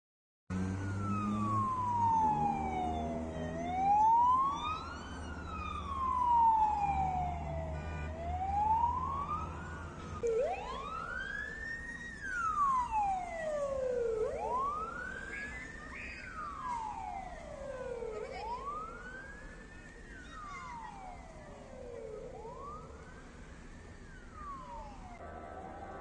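Russian ambulance electronic sirens on wail. First comes a slow wail that rises and falls evenly about every five seconds over an engine hum. From about ten seconds in there is a different wail, from a Ford Transit resuscitation ambulance, that climbs quickly and falls slowly about every four seconds and fades as it goes.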